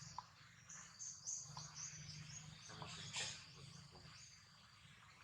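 Faint outdoor ambience: short high chirping calls over a steady high-pitched insect drone, with a brief louder rustle about three seconds in.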